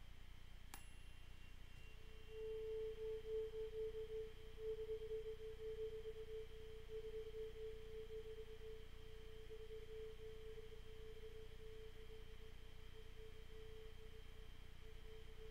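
Tuning fork struck with a sharp click, a brief high metallic ping dying away at once, then a single pure steady tone that swells in a second later and rings on, wavering in loudness and slowly fading.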